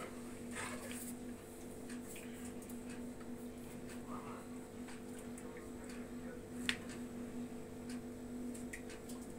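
Metal ladle scooping soup out of an Afghan kazan and pouring it into a bowl: faint clinks, with one sharper click about two-thirds of the way through, over a steady low hum.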